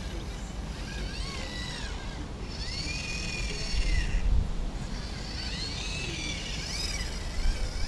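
The antenna tracker's pan-and-tilt motors whine in several short moves. Each whine rises in pitch as the motor speeds up and falls as it slows. Under them runs a low rumble that swells about four seconds in.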